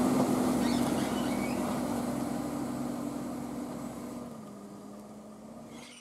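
Sugar cane haul-out running steadily while its raised bin tips, with a constant low engine hum that fades away toward the end.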